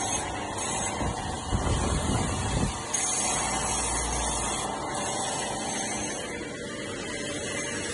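Stone turning lathe running and cutting stone, a steady hissing, grinding noise that changes abruptly about three seconds in.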